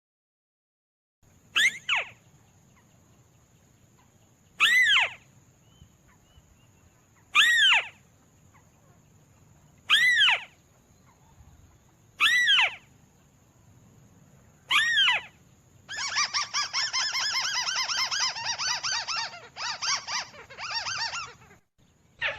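Lure recording of a crake (burung tikusan) calling: six short, sharp, downward-sliding calls about every two and a half seconds, then a fast chattering trill lasting about five seconds near the end. A faint steady high whine runs underneath.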